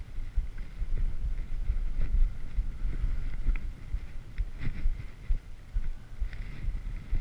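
Skis running over snow, heard through a skier's body-worn action camera: an uneven low rumble of wind and ski chatter, with scattered light clicks and knocks from skis and poles.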